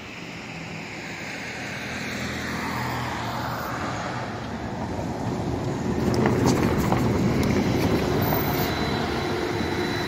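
SOR TNB 12 electric trolleybus approaching and passing close by. Its drive whine falls in pitch as it comes up, and the tyre and running noise is loudest as it goes past about six seconds in, with a few sharp clicks.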